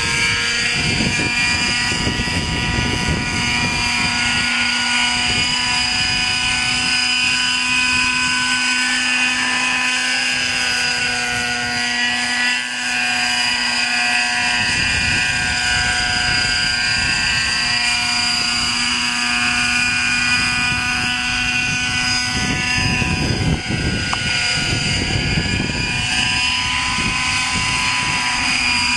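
Radio-controlled scale Hughes 500 helicopter flying: a steady, high engine and rotor whine made of several tones, which bend up and down in pitch in the middle as the model moves past. Gusts of wind buffet the microphone near the start and again towards the end.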